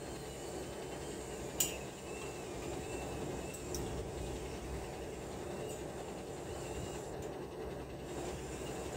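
Steady low background rumble with one sharp metallic clink about one and a half seconds in and a few faint ticks after it, from hand work on steel-framed concrete formwork and its clamps.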